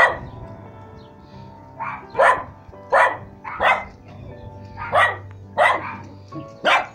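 Dog barking repeatedly, about a dozen sharp barks, some in quick pairs, over background music with steady held notes.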